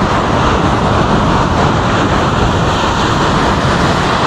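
Steady rushing noise of ocean surf breaking on a beach, mixed with wind on the microphone.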